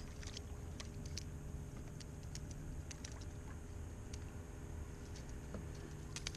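Quiet ambience on open water: a steady low hum with scattered faint ticks and clicks.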